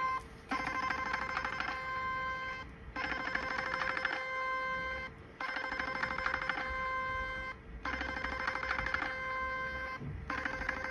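Portable Ultraformer 7D HIFU handpiece firing its treatment pulses as it passes along the skin. There are four runs of about two seconds each, a fast electronic ticking over a steady beeping tone, with brief pauses between the runs.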